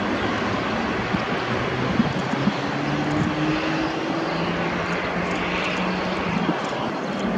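Boeing 777-200LR's GE90 turbofan engines running steadily as the airliner taxis, with a faint engine tone that rises slightly. Strong wind buffets the microphone.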